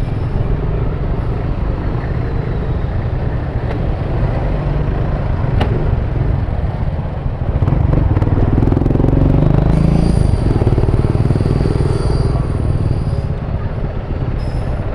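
Riding on a Yamaha NMAX scooter: steady engine and road noise with a rumbling rush of wind on the microphone, getting louder for a few seconds in the middle, with a faint high whine alongside.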